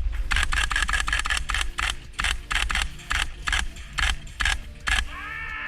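Gas blowback airsoft rifle firing a rapid string of semi-automatic shots, about four sharp cracks a second, stopping about five seconds in.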